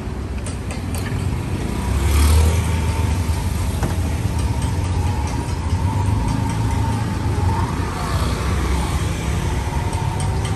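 Street traffic close by: car and motorbike engines running past with a steady low rumble. One vehicle passes louder about two seconds in.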